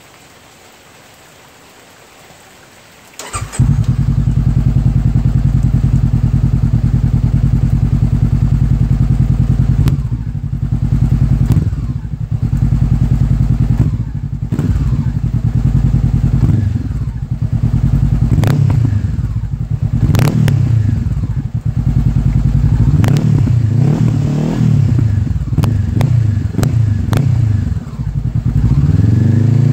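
2017 Honda CBR500R's parallel-twin engine through a Yoshimura R77 slip-on exhaust with the baffle removed. It starts about three seconds in, idles steadily, then from about ten seconds in is revved again and again in short throttle blips that rise and fall, with a few sharp cracks among the revs.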